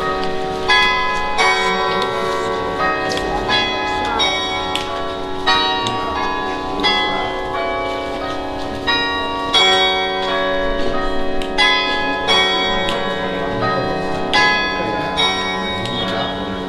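Carillon bells playing a slow tune, a new bell struck about every half second to second, each note ringing on and overlapping the next.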